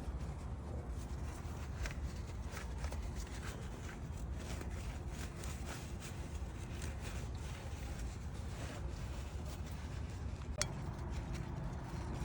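Light scraping and small metallic clicks of hand cleaning on the cylinder head's injector cups and oil-rail sealing surfaces, over a steady low hum, with one sharper click near the end.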